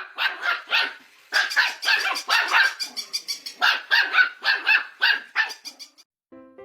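A dog barking rapidly and repeatedly, about three to four barks a second, with a short pause about a second in; the barking stops shortly before the end.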